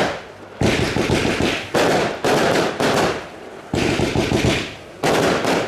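A fireworks display with shells bursting in quick succession: a run of about eight sharp bangs, roughly two a second, each trailing off over half a second, with a short pause near the middle.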